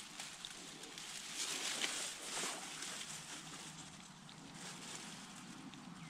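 Stream water running, with a couple of soft sloshes from wading around two seconds in.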